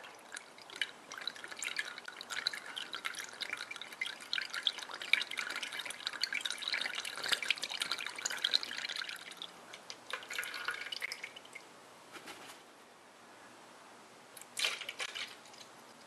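Green antifreeze-and-distilled-water premix pouring slowly from a plastic jug into a plastic funnel on the radiator filler neck, a thin stream splashing into the coolant pooled in the funnel, while the cooling system is refilled after a radiator replacement. The splashing goes quieter about eleven seconds in.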